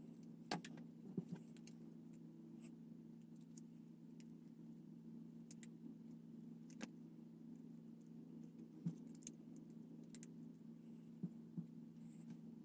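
Light clicks and taps of hard plastic model kit parts being handled and fitted together, a handful scattered through, the loudest near the start, over a faint steady hum.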